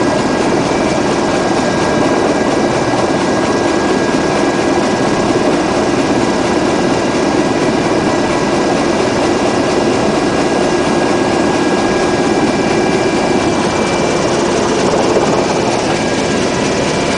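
UH-60 Black Hawk helicopter heard from inside the cockpit in low, steady flight: a dense, even din of rotors and twin turboshaft engines with steady whines running through it.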